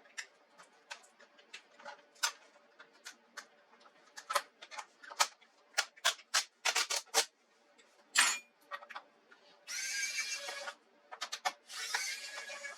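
Hands and small tools working on the plastic case of an HP 15 laptop: a run of irregular clicks and taps, a sharper click about eight seconds in, and two rasping noises of about a second each near the end.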